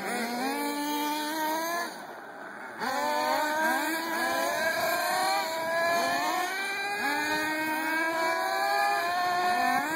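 Two Reely Overheater 4.1 nitro buggies' 4.1 cc Force two-stroke glow engines revving up and down, each burst a rising whine that levels off, often overlapping as both cars accelerate across the gravel. The sound drops away briefly about two seconds in, then picks up again.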